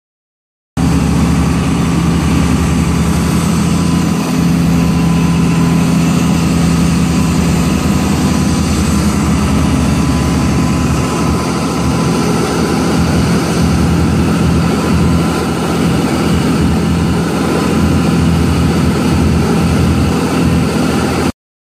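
Fishing charter boat's engine running steadily under way, a low, even drone with the rush of the bow wave and wind laid over it. It starts abruptly about a second in and cuts off sharply near the end.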